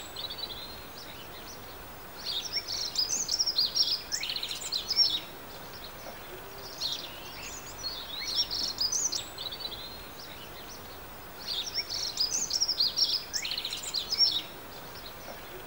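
Dunnock singing: three quick, warbling, trilling phrases of about three seconds each, a couple of seconds apart, over a steady background hiss.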